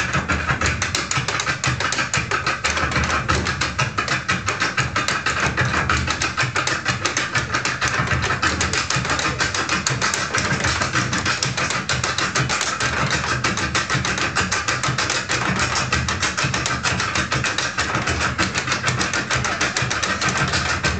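Two Irish step dancers' shoes beating fast, continuous rhythms on a wooden floor, danced a cappella with no music.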